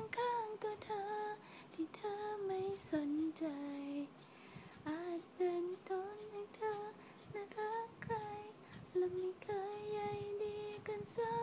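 A young female voice singing a slow, gliding melody of a Thai pop song, with no clear accompaniment.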